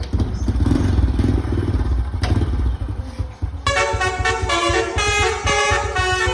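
Honda Supra X motorcycle engine starts and runs with a low steady rumble. About three and a half seconds in, a Basuri multi-tone bus horn fitted to the bike starts playing a melody in quick stepping notes over the engine.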